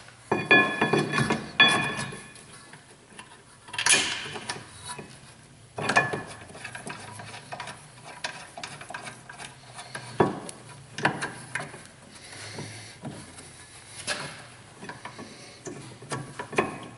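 Irregular metallic clinks, scrapes and rattles of a rear brake caliper bracket with new pads and hardware being fitted onto the hub by hand. Some clinks ring briefly, and there are sharper knocks every few seconds.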